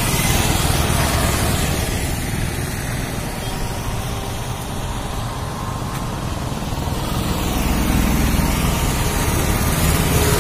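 Road traffic on a busy bridge: motorcycle and auto-rickshaw engines and tyres passing in a steady stream. It eases a little in the middle and grows louder again as more vehicles go by in the last few seconds.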